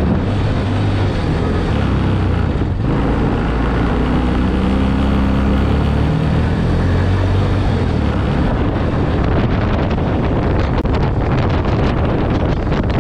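Four-wheeler (ATV) engine running as it is driven, with wind rushing over the microphone. From about two-thirds of the way in, the wind adds a rapid crackling on the microphone.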